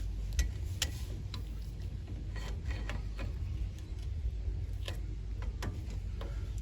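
Scattered light metallic clicks and taps of tools working at a truck's front brake caliper while its pistons are being pressed back, over a steady low hum.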